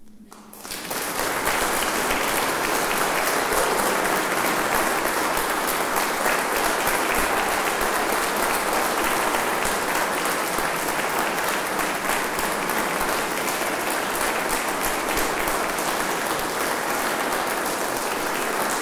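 Audience applauding. It breaks out about half a second in and quickly builds to steady clapping.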